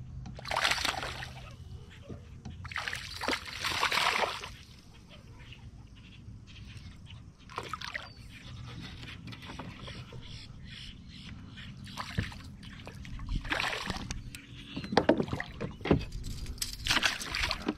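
A hooked bass splashing and thrashing at the water's surface in several short, loud bursts while being fought from a kayak, the bursts coming closer together and loudest near the end as the fish is brought alongside the hull.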